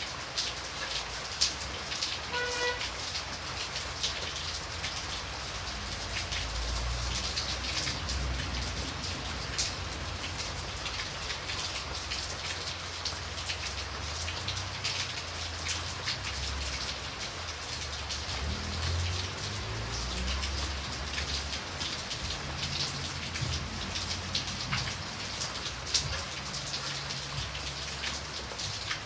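Steady rain falling, with single drops landing close by as sharp little clicks. A low rumble comes and goes underneath, and a short pitched tone sounds once about two seconds in.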